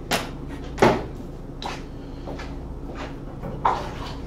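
Four short, sharp knocks and clunks of things being handled and set down, the loudest about a second in and near the end, over a steady low hum.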